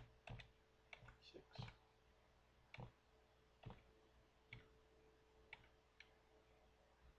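Faint clicks of a computer keyboard's down-arrow key tapped repeatedly, roughly once a second, about seven taps, with the Ctrl key held down. A faint steady hum lies underneath.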